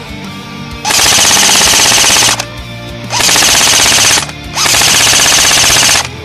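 Airsoft electric gun firing full-auto, three long bursts with short pauses between them, the rapid mechanical rattle close to the microphone. A metal music track plays underneath.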